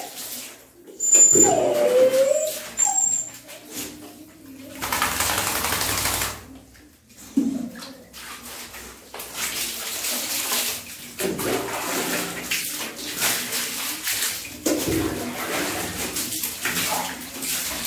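A dog whimpers briefly in a falling whine near the start, then water splashes and runs steadily as it is bathed and rinsed.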